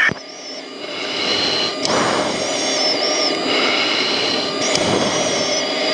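Steady rushing jet engine and airflow noise inside a jet aircraft, heard over the radio intercom, with a high whine and a couple of brief clicks about two and five seconds in.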